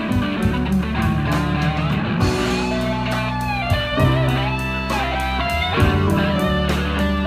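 Live band playing: an electric guitar lead line with bent, wavering notes over bass guitar and a steady drum beat.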